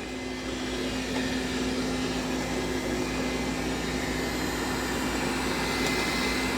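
Dreame D9 robot vacuum running: a steady whir of its suction motor with a constant low hum, growing a little louder over the first two seconds.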